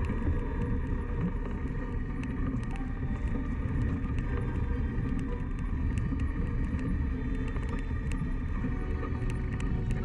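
Steady low rumble of a mountain bike being ridden on a dirt trail, wind and tyre noise on the microphone, with many small scattered clicks.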